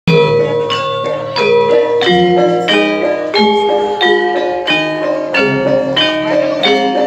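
Javanese gamelan music: metallophones struck in a steady run of ringing notes, about three a second, with lower sustained notes beneath.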